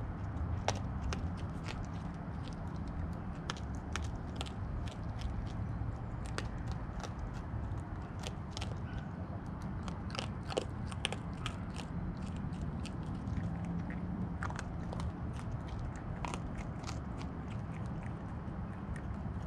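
Raccoon eating dry pet-food kibble close up: irregular sharp crunches and clicks as it bites and chews the pieces, over a steady low rumble.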